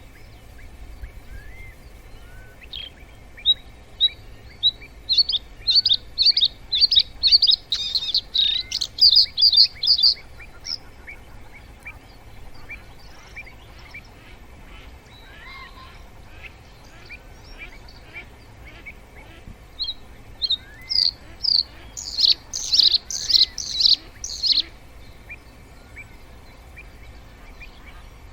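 Bird singing: two songs, each a run of repeated high notes that speeds up and grows louder, the first starting about three seconds in and the second about twenty seconds in, with softer chirps between and a low steady rumble underneath.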